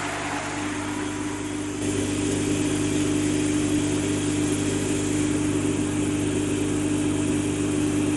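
A steady mechanical hum with a constant low drone, which steps up in level about two seconds in and then holds.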